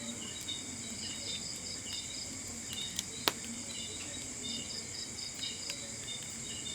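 Insects chirping: several high, pulsed trills overlap and repeat steadily. Two sharp clicks come about three seconds in.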